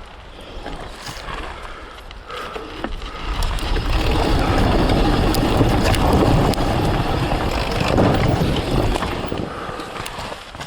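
Surron Ultra Bee electric dirt bike being ridden on a forest trail: a rough rush of wind on the microphone and tyre and chassis clatter, with many small knocks. It builds about three seconds in and eases off near the end.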